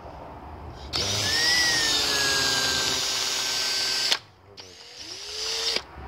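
Brake cleaner sprayed from an aerosol can: one long hiss of about three seconds with a faint whistle from the nozzle, then after a short pause a second, shorter spray.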